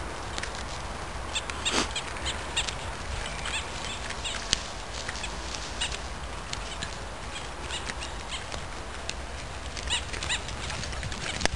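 Two cocker spaniels running and playing on a forest floor, their paws snapping and rustling dry twigs and needles in a scatter of irregular crackles.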